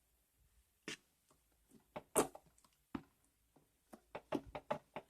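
Green slime being squeezed and worked by hand: irregular short wet squelches and pops, sparse at first and then a quick run of them near the end.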